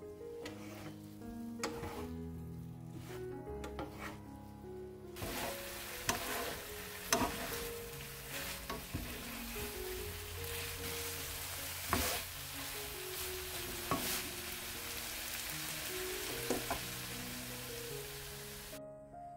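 Sand lance in a sticky chilli-soy glaze sizzling in a nonstick frying pan as it is tossed with a spatula, with sharp knocks and scrapes of the spatula against the pan. The sizzle starts suddenly about five seconds in and cuts off shortly before the end, over soft piano music throughout.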